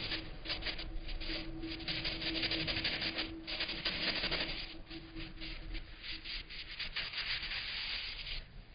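A cleaning cloth scrubbing back and forth over a refrigerator's surfaces in quick repeated strokes, with a short pause about three and a half seconds in. A faint steady hum lies underneath.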